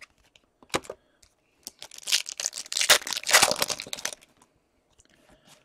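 Plastic wrapper of a hockey card pack being torn open and crinkled: a dense crackling run of about two and a half seconds, after a single sharp click under a second in.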